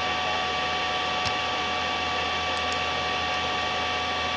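Steady hiss with a constant high-pitched electrical whine at a couple of fixed pitches; nothing else happens.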